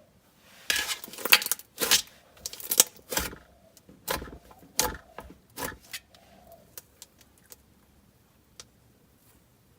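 Thick, creamy butter slime being squished and poked, giving a quick run of sharp clicks and pops for about six seconds, then only a few scattered clicks.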